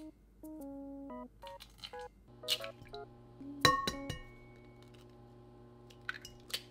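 Eggs knocked against a glass mixing bowl and cracked into it: a sharp clink with a short glassy ring a little past halfway, and a few lighter knocks and cracks, over light background music with plucked notes at the start.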